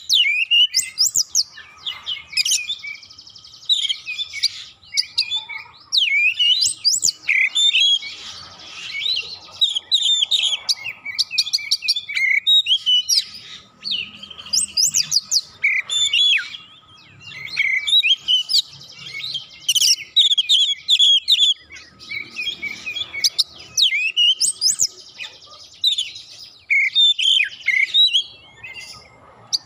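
Oriental magpie-robin (kacer) singing a long, varied song of fast whistled notes, sharp upslurred chips and buzzy trills, almost without a break.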